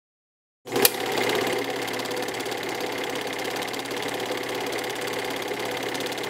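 Film projector sound effect: a sharp click just under a second in, then the projector's steady, fast clatter.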